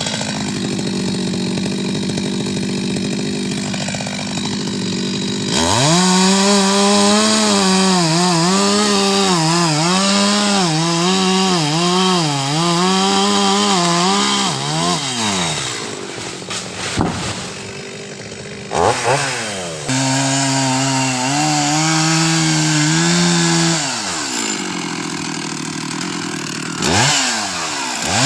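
Chainsaw engine idling, then revved up about five seconds in and held high with its pitch dipping again and again as the chain cuts into coconut palm wood. It drops back to idle, blips briefly, cuts again for a few seconds, and revs once more near the end.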